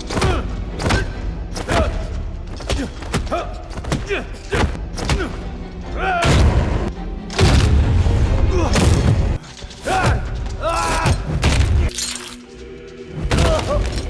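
Film fight-scene soundtrack: repeated heavy blows landing with thuds and crashes, and short pained grunts and cries, over music. The blows are thickest and loudest from about six to nine and a half seconds in.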